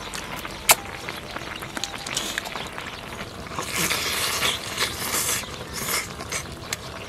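Close-up eating of charcoal-grilled bullfrog: crisp crunching and chewing with lip smacks, a sharp crunch just under a second in and a longer noisy stretch from about halfway.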